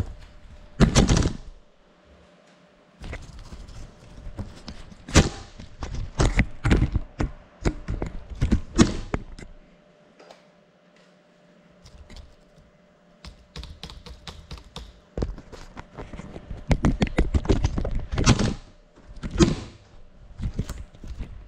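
Irregular runs of sharp clicks and knocks. The sound falls quiet briefly about two seconds in and again for about two seconds around the middle.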